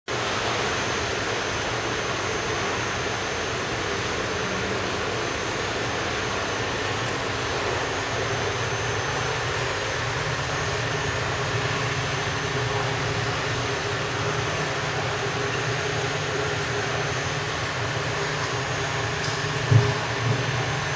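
Steady mechanical hum and hiss with a thin high whine, like a pump or blower running, and a single brief knock about a second before the end.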